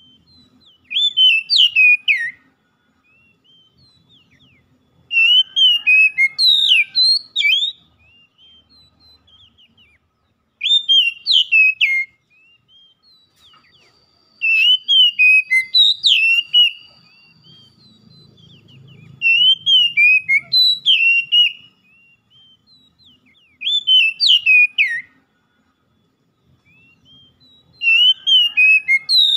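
Oriental magpie-robin singing: loud whistled song phrases about two seconds long, seven of them, each a quick run of rising and falling notes, with short pauses between.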